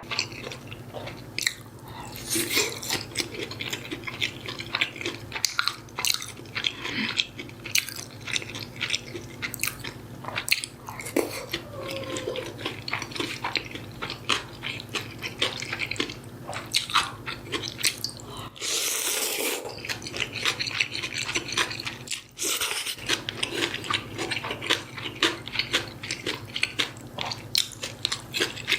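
Close-miked chewing and biting of food, a steady run of moist clicks and small crunches from the mouth, with a rush of noise lasting about a second about two-thirds of the way through.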